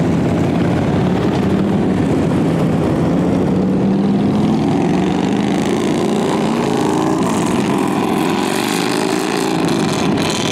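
Several motorcycle engines running as bikes ride by, their pitch rising and falling as they pass and rev.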